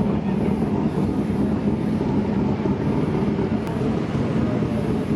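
Late-model race car engines running, a steady unbroken rumble.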